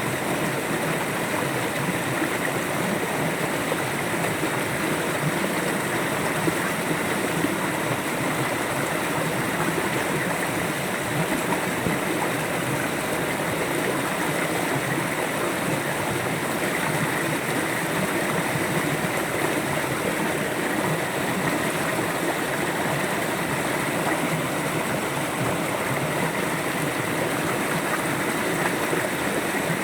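A river flowing: an even, unbroken rush of running water.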